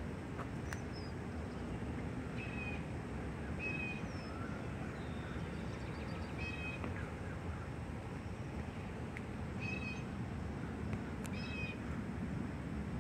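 An animal's short, nasal call, repeated about six times at uneven intervals of one and a half to three seconds, with a few fainter chirps and a steady low background rumble.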